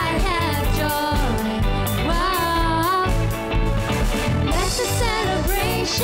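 A woman singing an upbeat worship song over a live band: keyboard, electric guitar, bass and a steady drum beat.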